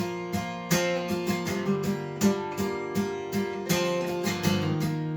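Acoustic guitar strummed in a steady rhythm, the chord changing a few times, with no singing.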